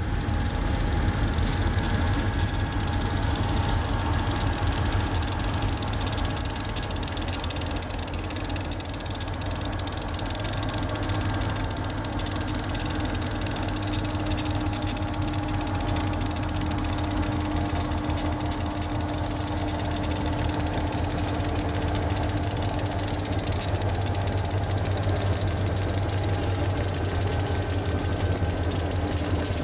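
Diesel locomotive engine running steadily with a deep rumble as the train approaches and passes.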